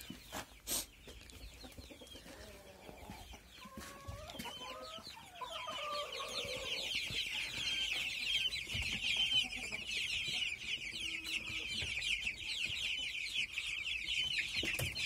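A flock of young chicks and guinea keets peeping nonstop, a dense high chorus of short calls that swells in about five seconds in and holds steady. A couple of sharp knocks come near the start, and a few lower calls before the chorus builds.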